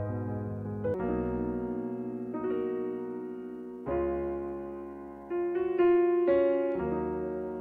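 Slow, gentle piano music: chords struck every second or so, each ringing on and fading before the next.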